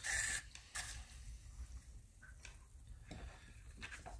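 Aerosol rust-remover spray hissing into a corroded, seized car hood lock: a short burst at the start and a second brief one just before a second in. A few faint clicks follow as the lock and can are handled.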